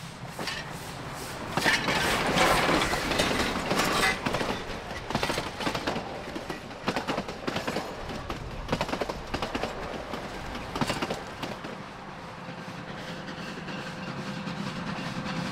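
Durango & Silverton narrow-gauge steam locomotive No. 480, a K-36 2-8-2, passes close by, loudest in the first few seconds. Its cars then roll past with a clickety-clack of wheels over the rail joints. Near the end a quieter, steadier train rumble builds.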